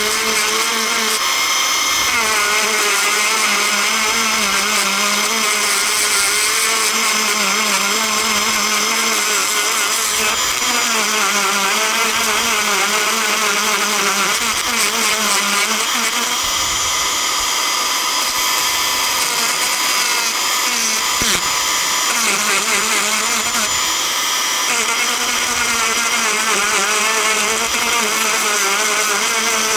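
Corded handheld rotary tool grinding down a dent in a tablet's full metal body: a loud, steady motor whine whose pitch wavers up and down as the bit bears on the metal.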